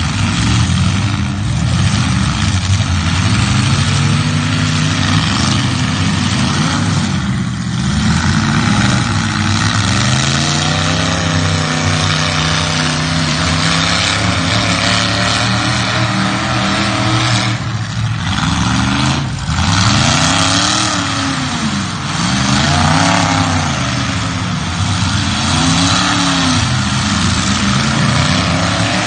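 Demolition derby car engines running hard and revving, their pitch repeatedly climbing and falling over a constant engine din.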